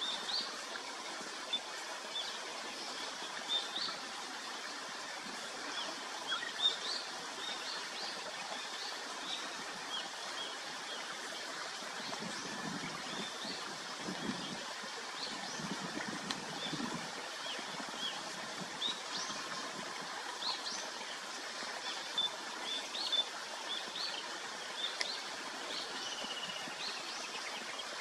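Small birds chirping, many short high chirps scattered throughout, over a steady hiss of outdoor background noise. A faint low rumble comes in briefly around the middle.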